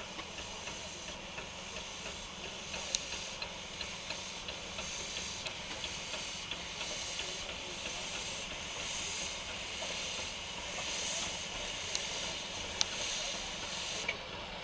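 Baldwin 4-6-0T narrow-gauge steam locomotive No. 778 hissing steam from low around its cylinders. The hiss swells and fades in slow waves, with a few sharp clicks, and cuts off suddenly near the end.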